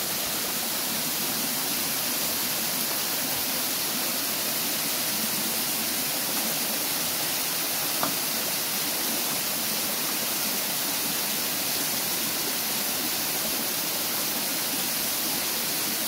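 Running water: a steady rush, with one small click about halfway through.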